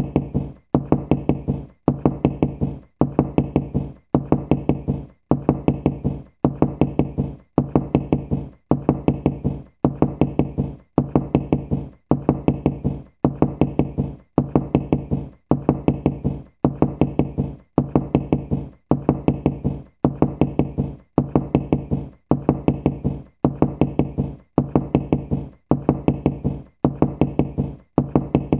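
Knocking in quick groups of about four knocks, one group about every second, repeating steadily over and over with a low, hollow resonance.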